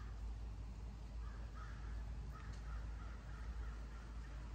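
Crows cawing in a string of short calls, a few a second, over a steady low rumble.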